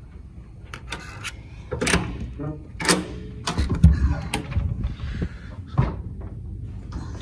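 A hotel room door and its latch being worked: a scattered run of sharp clicks and knocks, with a couple of dull thuds about halfway through.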